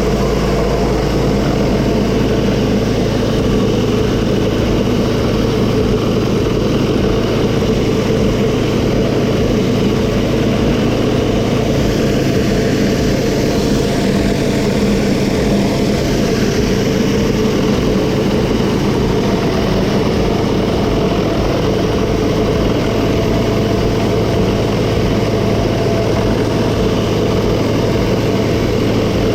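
Pressure washer's gas engine running steadily, with the even hiss of the water spray over it.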